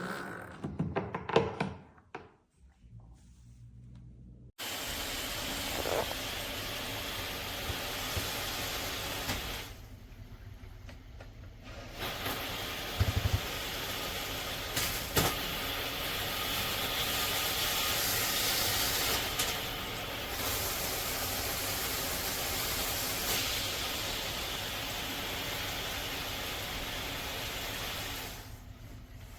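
Handheld shower head spraying water in a steady hiss. The spray starts a few seconds in, stops for about two seconds, and then comes back on. A few knocks come just before the spray starts.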